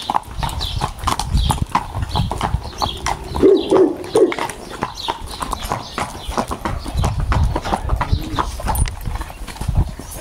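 Horse hooves clopping on pavement at a walk: a steady run of sharp, hard knocks.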